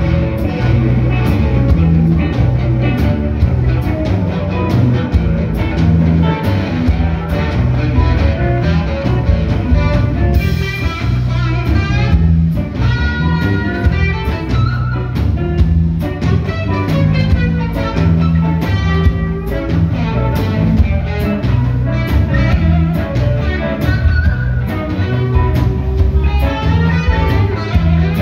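Live blues band playing an instrumental section, with an electric guitar taking a solo of bent, gliding notes over bass and drums.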